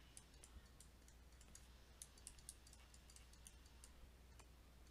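Near silence: faint scattered clicks and taps from a stylus writing on a drawing tablet, over a steady low hum.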